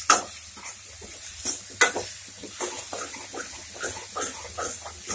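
Steel spoon stirring and scraping chopped tomatoes and onions frying in a metal kadhai, with a light sizzle under many short scraping strokes. The spoon clinks sharply against the pan near the start and again, louder, just under two seconds in.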